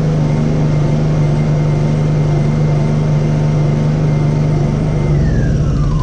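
Honda EU2000i inverter generator running fast just after being pull-started: a steady engine note with a high whine. About five seconds in, the engine speed and the whine start to drop.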